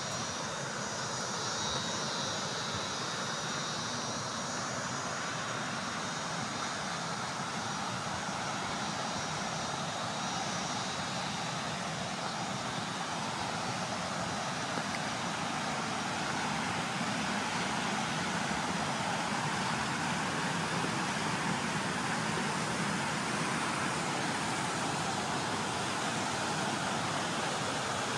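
Steady rushing of falling water from a waterfall, growing a little louder over the second half.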